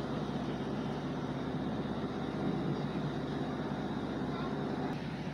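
Steady running noise heard inside a Class 150 diesel multiple unit under way: the even drone of its underfloor Cummins diesel engine together with the rumble of the wheels on the track.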